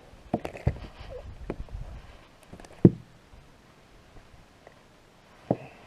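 Scattered knocks and clicks in a boat as a freshly caught small smallmouth bass is handled and unhooked, the sharpest knock a little before halfway through and another near the end.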